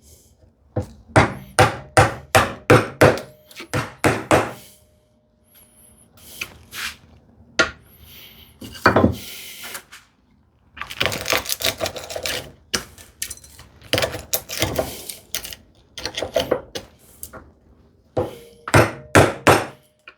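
A mallet striking a bevel-edge chisel, chopping a mortise into a wooden leg. It comes in runs of sharp blows, about two or three a second, with a short scrape a little before halfway, likely waste being levered out.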